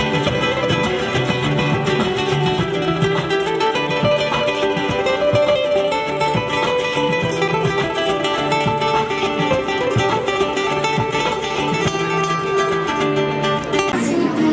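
A busker's acoustic guitar, fingerpicked in a steady stream of plucked notes with no singing; the sound changes near the end.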